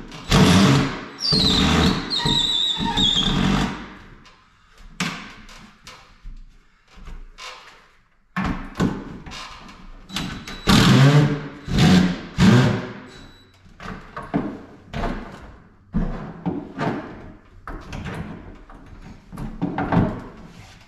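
A series of irregular knocks, scrapes and creaks from old heavy wooden kitchen wall cabinets being worked loose from the wall.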